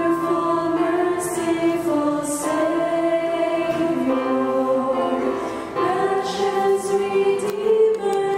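Women's vocal ensemble singing together in harmony into microphones, holding long notes.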